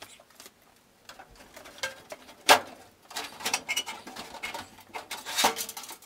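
Sheet-metal knocks and rattles as a Goodman furnace's blower motor and fan housing is slid out of its cabinet and handled, with the sharpest knock about two and a half seconds in and another cluster near the end.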